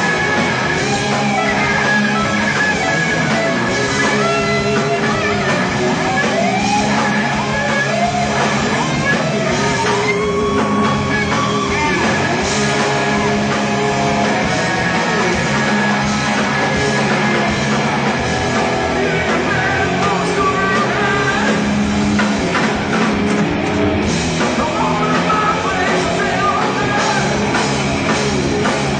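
Live rock band playing: electric guitar lines over a drum kit, with singing at times.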